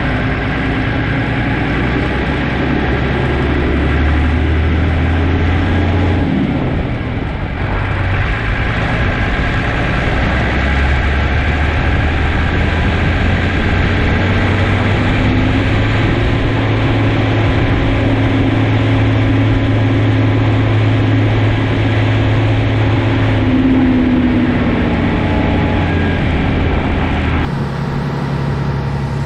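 Sampo 680 combine harvester running, a steady engine and machinery drone whose pitch drifts slowly up and down, with the sound changing abruptly a couple of times.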